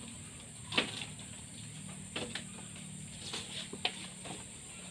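Quiet outdoor ambience: a steady high-pitched drone, with a few faint scattered knocks and rustles, the sharpest just under a second in and a small cluster near the end.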